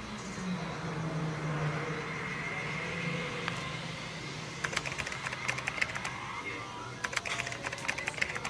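Computer keyboard typing in two quick runs of key clicks, the first about halfway through and the second near the end, over a low steady hum.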